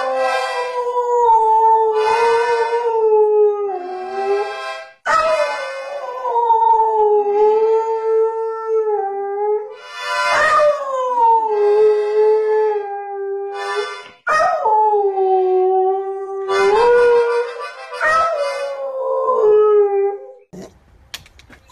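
Dog howling along to music: five long howls, each swooping up at the start and then sliding slowly down in pitch, with short breaks between them.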